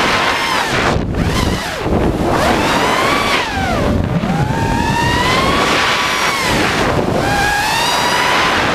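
ImpulseRC Reverb FPV quadcopter's brushless motors and propellers whining, the pitch sliding up and down as the throttle changes, with brief drops about a second in and again around four seconds. Wind rushes over the onboard camera's microphone.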